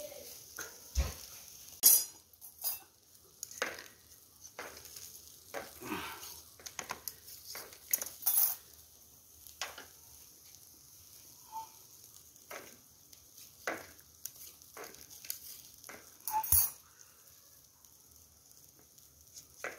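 Scattered clinks and knocks of metal skewers, grill tray and plates being handled while grilled chicken tikka is served, with the sharpest knocks about two seconds in and again near the end.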